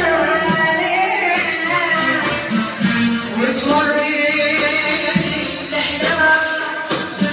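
Iraqi mawwal singing: a voice holds and bends long melodic lines over musical accompaniment.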